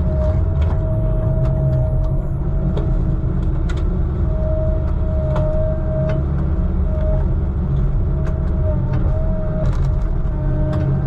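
Heavy log truck's engine running steadily with a deep rumble, a steady whine above it, and scattered clicks and knocks.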